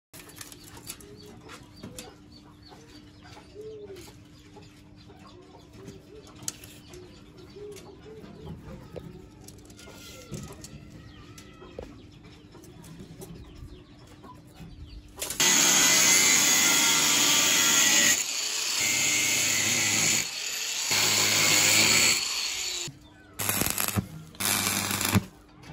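Stick welding rebar: the electric arc crackles and hisses loudly and evenly from about halfway through. Near the end the arc breaks off and restrikes several times. Before it, only faint small clicks and a low steady hum.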